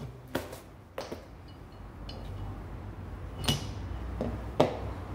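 A steel woodworking cutter and its paper-and-plastic packet being handled on an MDF worktop: a few sharp clinks and knocks as the metal is set down, the loudest near the end, with light rustling between.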